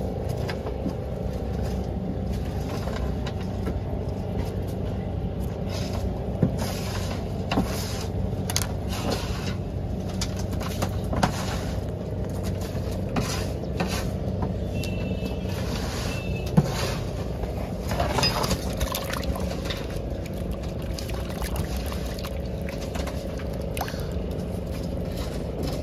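Fishing boat engine running steadily, with scattered clicks and knocks on top.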